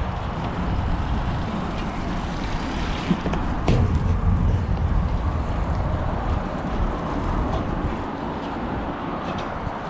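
Wind rumbling and buffeting on a body-worn camera's microphone, with a few light knocks as gloved hands and shoes grip the steel plates of the sculpture.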